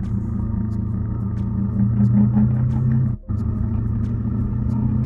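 Yamaha R3's 321 cc parallel-twin engine running steadily while the motorcycle is ridden. The sound breaks off for an instant about three seconds in, then carries on.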